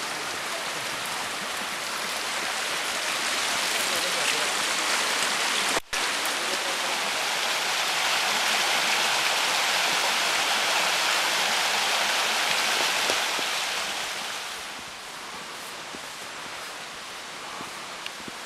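Steady rushing of a river's flowing water, louder through the middle and easing off about fourteen seconds in, with a brief cut-out about six seconds in.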